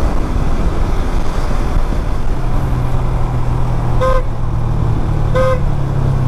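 Two short beeps of a vehicle horn, about a second and a half apart, over the steady running of a motorcycle engine and wind rush while riding in traffic.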